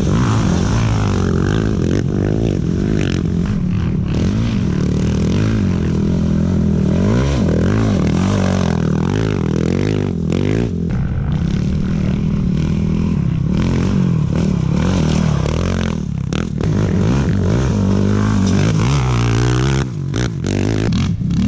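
Off-road racing engines revving up and down as the vehicles pass at speed, with scraping and clattering. The sound breaks off and changes suddenly several times.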